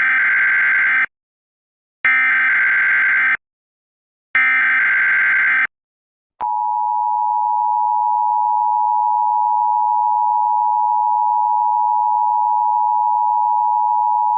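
Emergency Alert System tones: three loud SAME header data bursts, each just over a second long and about a second apart, then the steady two-tone EAS attention signal starting about six seconds in.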